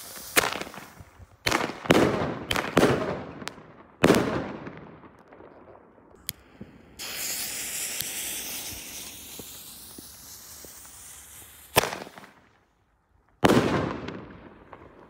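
Pyrofactory Color Thunder King firecrackers going off: about six sharp bangs in the first four seconds, each with an echoing tail. Then a lit fuse hisses for several seconds before two more bangs near the end.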